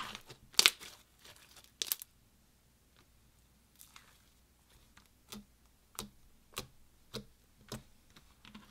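Clear slime full of seed beads being squeezed and pressed by hand. It crackles loudly twice in the first two seconds, then gives about five short, sharp pops a little over half a second apart as fingers poke into it.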